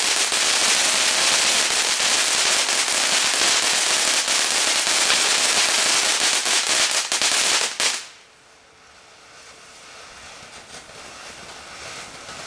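Consumer firework crackling densely and rapidly for about eight seconds, then stopping abruptly.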